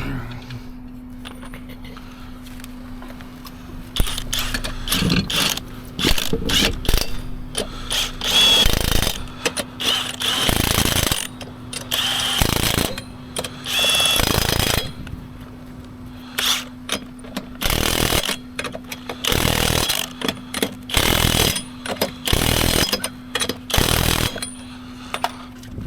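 Cordless impact wrench hammering in about a dozen short bursts, roughly a second or less each, over a steady low hum.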